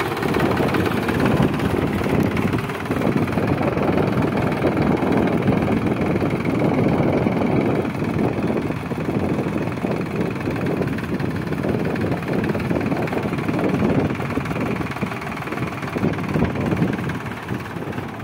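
Sonalika DI 745 III tractor's diesel engine running steadily as the tractor drives off along a dirt track.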